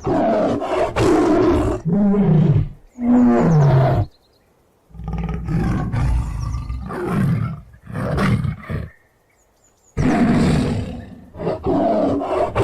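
Tiger roaring: a run of loud roars in three bouts broken by two short pauses, several of the calls sliding down in pitch at their ends.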